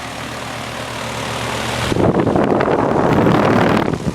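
Payne air-conditioner condenser unit running with a steady low hum. About two seconds in, a loud, rough rush of moving air buffets the microphone for about two seconds, then cuts off suddenly.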